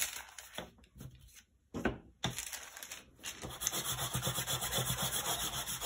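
Chalk pastel rubbed rapidly back and forth over tracing paper on a tabletop, coating it to make a carbon transfer sheet; the strokes begin about halfway in and keep an even quick rhythm. Before that, light paper handling with a short knock about two seconds in.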